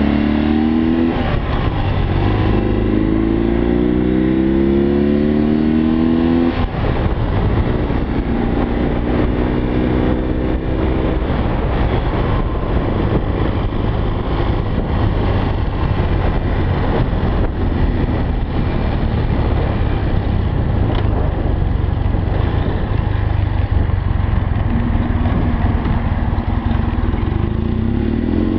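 BMW R45's air-cooled flat-twin engine accelerating through the gears: its pitch climbs and falls back at each gear change in the first ten seconds or so. A long stretch of wind rush and road noise follows with the engine underneath, and the engine pitch rises again near the end.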